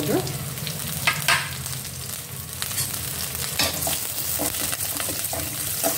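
Tadka of mustard seeds, chana dal, urad dal, curry leaves and green chillies sizzling in hot oil in a steel kadai as it is stirred, with a few sharp clinks against the steel.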